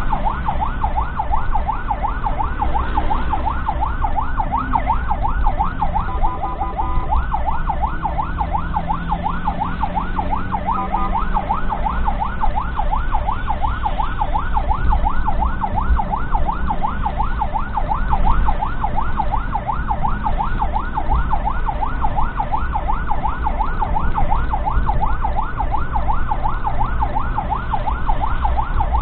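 Ambulance siren in a rapid yelp, a rising-and-falling wail repeating several times a second without a break, heard from inside the vehicle's cab over engine and road rumble. Brief steady tones cut in twice, about six and eleven seconds in.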